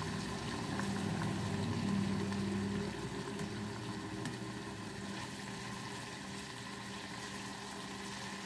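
Eggs frying in oil in a non-stick pan with chicken, red capsicum and tomato, sizzling steadily while a spatula stirs and scrapes them. A low hum fades out about three seconds in.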